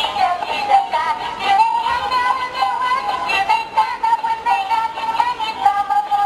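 Peek-a-boo plush dog toy singing a tune in a high, synthetic electronic voice through its small built-in speaker; the sound is thin, with almost no bass.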